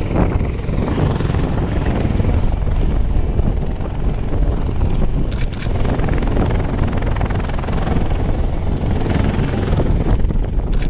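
H-53 Super Sea Stallion heavy helicopter, with three engines, running loud and steady: the heavy chop of its big rotor over a deep turbine drone.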